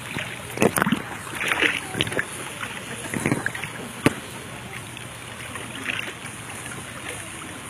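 Pool water splashing and sloshing close to the microphone, with a few sharp splashes in the first four seconds over a steady hiss.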